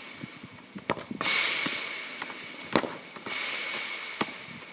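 A football being kicked against a wall in a street game: a few sharp knocks from the ball, with running footsteps on the road. A loud crackling hiss starts suddenly twice and fades over a second or two.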